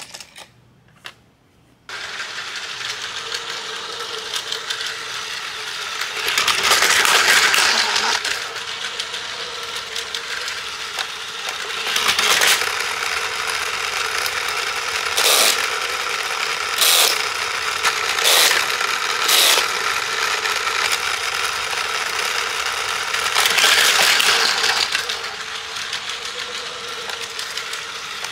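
Battery-powered Plarail toy train running, its small motor giving a steady whine with plastic rattling on the track; it starts abruptly about two seconds in after a few clicks. Several short louder plastic clatters and clicks come on top of it, from the terminal's plastic parts and toy cars.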